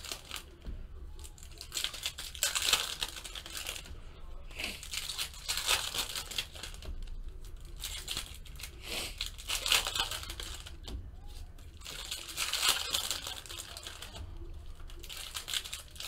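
Foil trading-card pack wrappers being torn open and crinkled by hand, in irregular bursts of crackling rustle.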